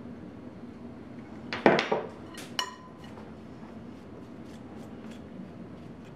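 A glass pitcher of ice water and a metal measuring spoon set down on the counter: a loud clunk with rattle about a second and a half in, then two sharp metallic clinks, the second ringing briefly. After that, faint light clicks of a fork working crumbly pie dough in a glass bowl.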